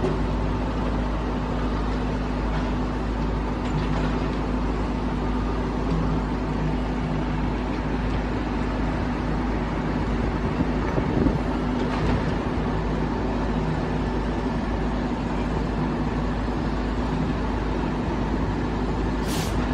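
A heavy diesel engine running steadily at a constant pitch. A short hiss comes just before the end.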